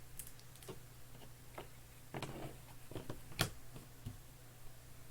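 Scattered light clicks and taps, about ten of them at uneven spacing, the loudest about three and a half seconds in, over a faint steady hum.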